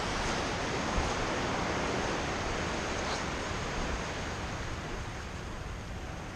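Small surf washing up the beach, with some wind on the microphone: an even rush that slowly fades.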